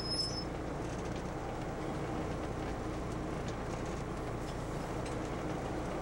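Steady low engine rumble and hull noise of a survey boat, heard on board, with a brief high beep right at the start.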